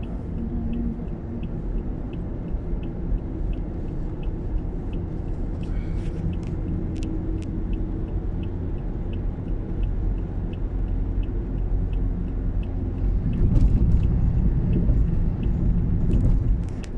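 Car cabin rumble of engine and tyres while driving, growing louder about three-quarters of the way through. A small steady ticking runs over it, about three ticks every two seconds.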